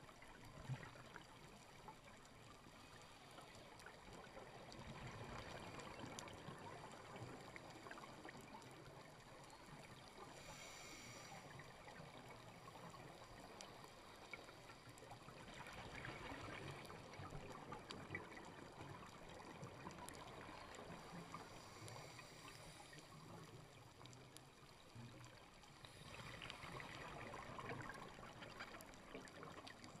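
Faint underwater sound of a scuba diver's exhaled bubbles, swelling into a bubbly rush every five or six seconds, with scattered small clicks between.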